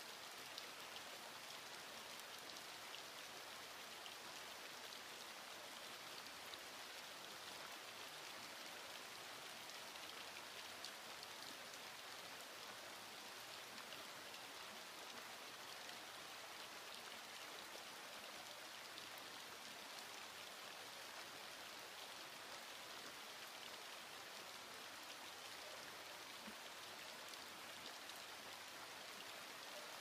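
Steady, quiet rain falling, an even hiss with the fine ticking of individual drops.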